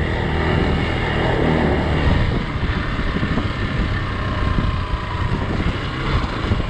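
Hero Xpulse 200's single-cylinder engine running steadily as the motorcycle rides, with wind noise on the microphone.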